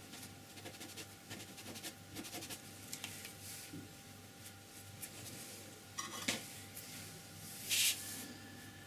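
Small handling sounds of painting at a table: light scratching and tapping of a brush and hand on paper, a sharp click about six seconds in, then a short loud scraping rustle near the end as the sheet of paper is slid round on the tabletop.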